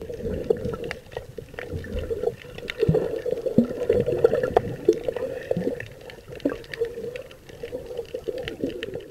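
Muffled underwater sound heard through a submerged camera: a low, steady drone with water movement and many short scattered clicks.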